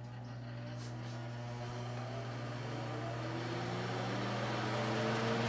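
Vintage Mimar Dynafan 425 electric fan spinning up to high speed: a steady motor hum under a slowly rising whine and blade whoosh that grow steadily louder.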